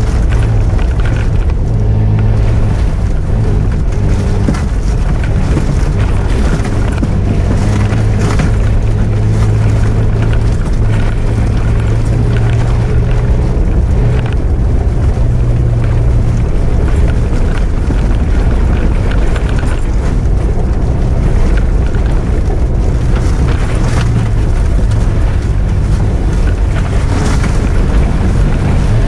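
Engine of an off-road 4x4 running steadily under way, heard from inside the cab, with road noise and scattered knocks from driving over a rough, wet dirt track.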